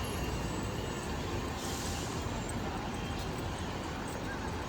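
Busy main-road traffic noise: a steady hum of passing vehicles, with a short hiss about a second and a half in.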